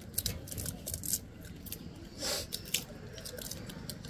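Gray langur eating from a wicker basket: irregular small crunching clicks, with a short louder rustle a little past halfway.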